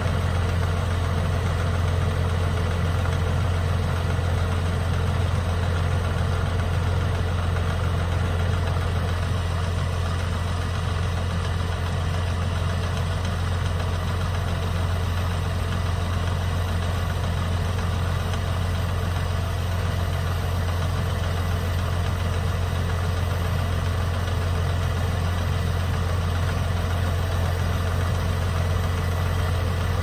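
Engine running steadily at an unchanging speed, with a strong low hum.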